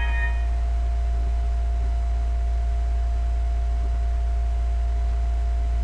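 Steady low electrical hum with a thin steady tone above it, the recording's constant background noise. At the start, the tail of a Windows dialog alert chime fades out.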